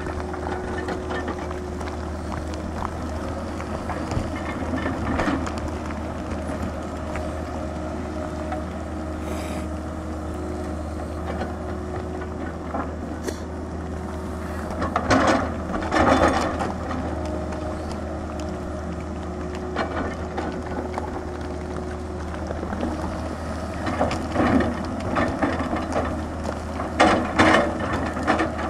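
Tata Hitachi 220 excavator's diesel engine running steadily under load as it digs, with a steady whine over it in the first half. Bursts of scraping and knocking from the bucket working rock and soil come about halfway through and again near the end.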